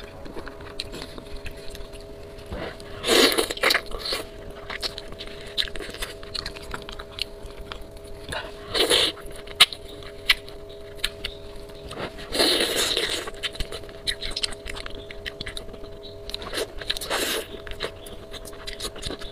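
Close-miked mukbang eating: wet chewing and biting on bullfrog meat with many small clicks, and four louder slurps as enoki mushrooms are sucked from spicy broth.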